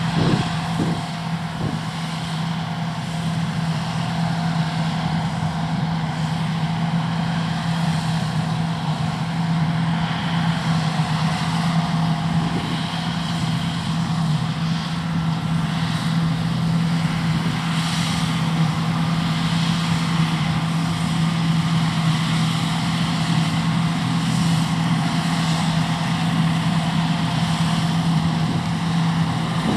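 John Deere T560 combine harvester running steadily at working speed, a constant engine hum over the even whir of its machinery.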